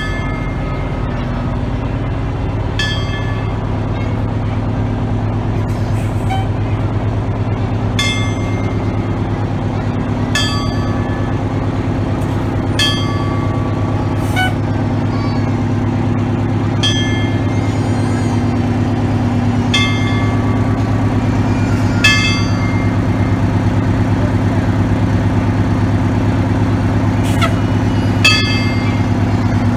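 Fire engine's motor running low and steady as the truck creeps past close by, with short high ringing tones every two to three seconds.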